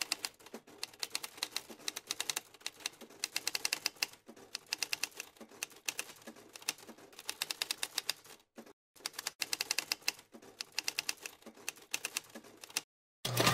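Typewriter sound effect: rapid runs of mechanical keystrokes with short pauses between them, keeping pace with text being typed out, then a single louder clunk near the end.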